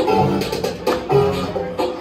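Electronic dance music playing loud over a club sound system, with a steady beat and a repeating melodic phrase.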